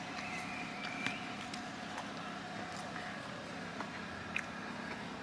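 Steady outdoor hum of passing traffic, with a few faint mouth clicks from someone chewing a bite of pizza.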